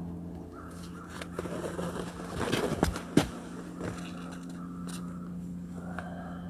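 Handling noise: rustling with a few sharp clicks and knocks, the loudest a little over three seconds in, over a steady low hum.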